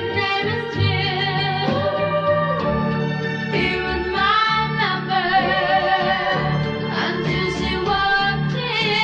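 1964 pop song recording: a singer holding long, wavering notes over a steady band accompaniment.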